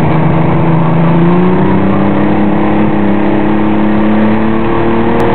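Motorboat engine running hard under load as it accelerates to pull a water-skier up out of the water. Its pitch climbs about a second in and then holds steady, over a rush of water and wind.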